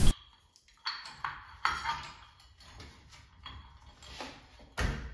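Metal chandelier chain being pulled through the collar and canopy: a string of short, irregular clinks and rattles, the loudest near the end.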